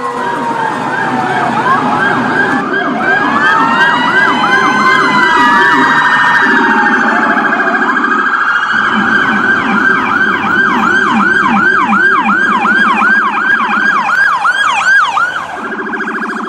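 Electronic emergency-vehicle sirens sounding loudly, several tones at once: slow rising-and-falling wails in the first half, then a fast yelp of rapid repeated sweeps, about three to four a second, over a lower warbling tone.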